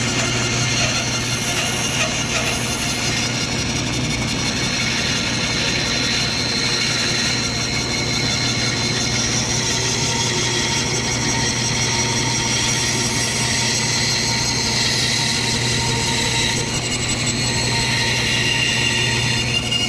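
Bandsaw running steadily with a constant hum and high whine as its blade cuts a thick glued-up wooden blank along a curved outline.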